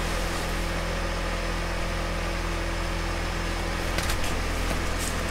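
Steady low hum and whir of the tent's heater and the small fan on top of it running, with a couple of faint clicks about four seconds in.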